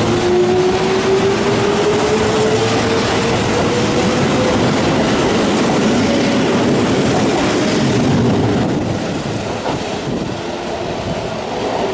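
Electric train pulling out from the platform, its traction motors whining and rising steadily in pitch as it gathers speed, over the rumble and clatter of the wheels on the rails. The sound drops away after about eight seconds as the train draws off.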